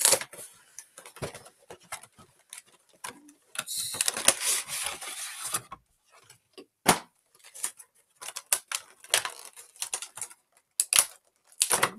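Handling and unpacking of a cardboard-and-plastic Pokémon trading-card box: scattered clicks, taps and knocks, with a longer stretch of crinkling and rustling about four seconds in.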